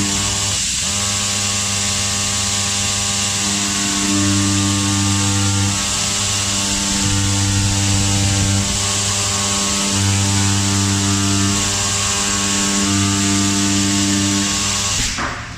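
CNC oscillating-knife cutter running while cutting foam: the vibrating blade gives a steady electric buzz over a hiss. Its low hum switches on and off every second or two, and the sound cuts off sharply just before the end.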